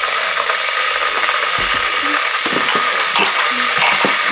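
A small electric appliance motor running steadily with a whirring hum, cut off abruptly near the end.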